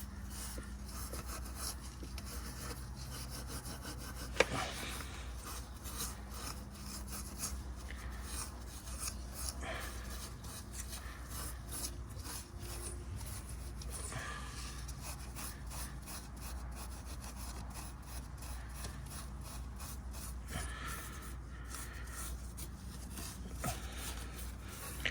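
Sandpaper-like abrasive pad scrubbed back and forth in quick strokes on the engine's oil separator mounting surface, cleaning it for a new gasket. A single sharp tap about four seconds in.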